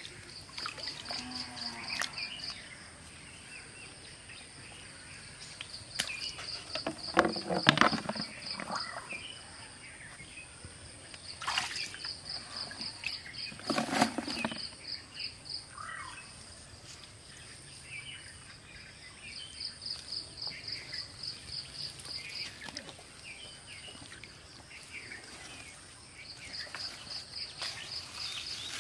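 Rural outdoor ambience: a high pulsed chirping that comes in bursts of a few seconds, over a steady high whine and scattered bird calls. Shallow muddy water splashes twice, about seven and fourteen seconds in.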